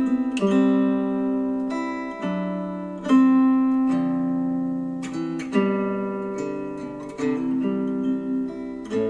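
Guitar music with chords struck every second or two and left to ring, played back through a pair of Klipsch The Fives powered speakers over Bluetooth with the vocal EQ preset.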